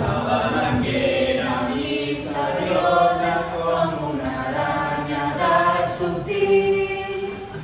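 A group of voices singing a slow song in held notes, without clear words. A short knock sounds right at the start.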